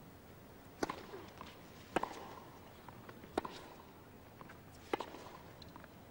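Tennis rally on a hard court: four sharp racket strikes on the ball, about one and a half seconds apart, with fainter ball bounces and footsteps between them.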